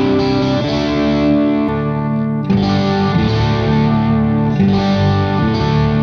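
Distorted electric guitar chords played through a Radial Twin-City ABY switcher into two amplifiers at once, with the second amp out of phase so the bass partly cancels. Sustained chords, with fresh chords struck about two and a half seconds in and again near the end.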